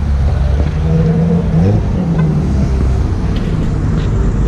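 BMW E24 6 Series coupe's straight-six engine running as the car pulls away at low speed, with a brief rise in revs about a second and a half in.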